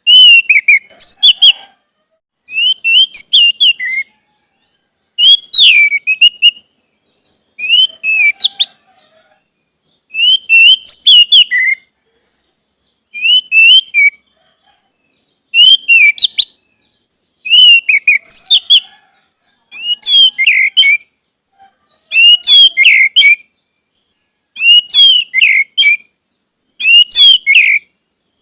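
Orange-headed thrush (anis merah) singing: a dozen short, varied phrases of quick whistled notes, one every two to three seconds, with brief pauses between them.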